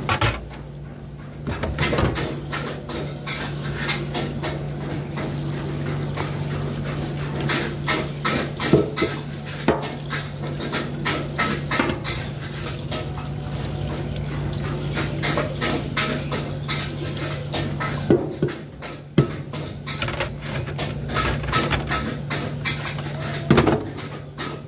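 Tap water running into a stainless steel sink while plates are scrubbed and rinsed by hand in rubber gloves, with frequent knocks and clatters of the dishes and a steady low hum underneath.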